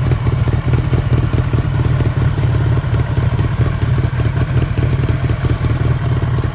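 1976 Kawasaki KZ900's air-cooled inline-four engine running steadily, with a fast, even pulse of firing strokes and no revving.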